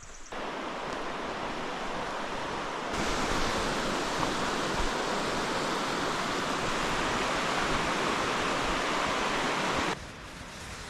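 Rushing river water, a steady even rush that starts abruptly just after the start, gets louder about three seconds in, and cuts off suddenly about ten seconds in.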